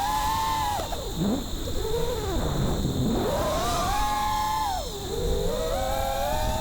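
A five-inch FPV quadcopter's brushless motors whining. The pitch plunges and climbs back twice in quick succession as the throttle is chopped and punched, then dips and recovers once more near the end.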